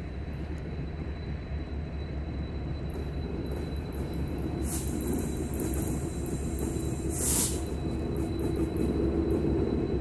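Norfolk Southern diesel locomotive approaching with its train, its engine rumble growing steadily louder. A brief rush of hissing noise comes about seven seconds in.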